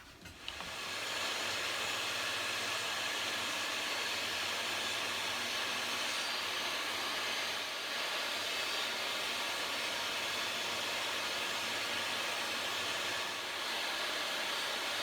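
Table saw starting up and running steadily while cutting shallow dado grooves in the wooden drawer sides; the level dips slightly twice.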